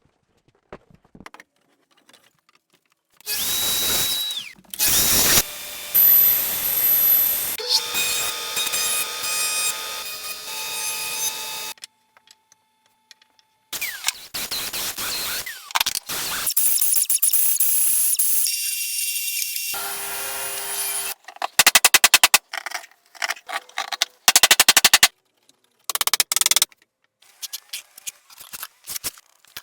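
Woodworking tool sounds in quick cuts: power tools running in short spells that start and stop abruptly. Near the end come runs of rapid, evenly spaced strokes and scattered clicks.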